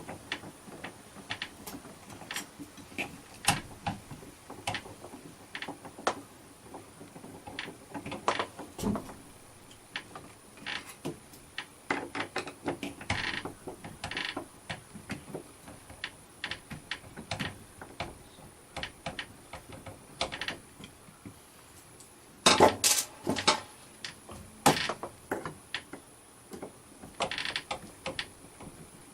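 Irregular clicks, knocks and light clatter of door-lock hardware being handled and worked by hand, with a louder cluster of knocks about 22 seconds in.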